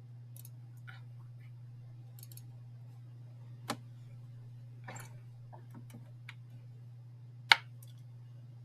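Scattered computer mouse clicks and key taps, the sharpest about four and seven and a half seconds in, over a steady low hum.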